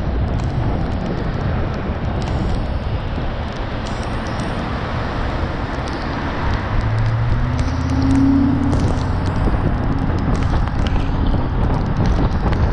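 Wind buffeting the microphone and road and tyre noise from travelling along a wet road. A steady low hum joins about seven seconds in and fades out about two seconds later.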